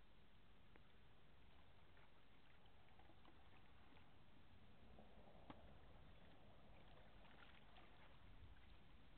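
Near silence: faint outdoor ambience with a low steady rumble and one faint click about halfway through.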